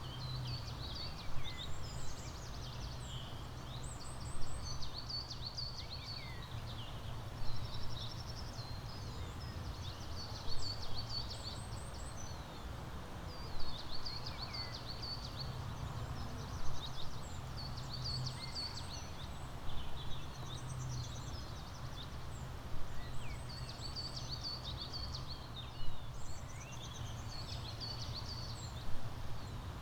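Songbirds singing, with short, quick chirping phrases coming every few seconds, over a steady low rumble.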